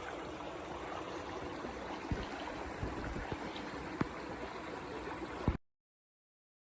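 Steady rush of running water with a few sharp knocks scattered through it; the sound cuts off abruptly about five and a half seconds in.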